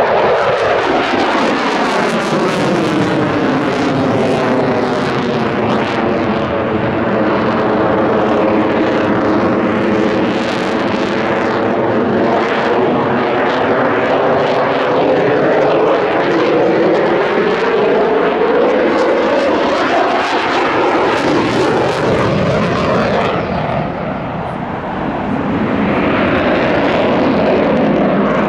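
Loud jet noise from a Eurofighter Typhoon's twin Eurojet EJ200 turbofans, with a sweeping, phasing whoosh as the jet passes and turns. The noise dips briefly near the end, then swells again with the afterburners lit.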